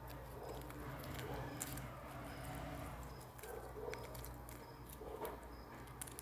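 Cardboard robot toy being handled and folded by hand: light scattered paper rustles, creaks and small clicks from the cardboard parts, over a steady low hum.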